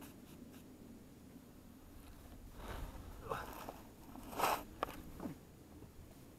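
Handling noise close to the camera: a hand and jacket sleeve rubbing and scraping against it, a few short rustles and crunches, the loudest about four and a half seconds in.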